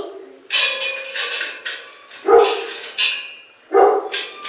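A dog barking, loud and repeated, in three bouts of barks.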